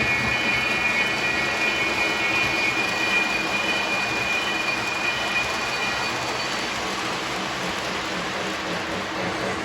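Lionel O-gauge model trains running on the layout's track, a steady rolling rumble with a high squealing whine that fades out about six or seven seconds in.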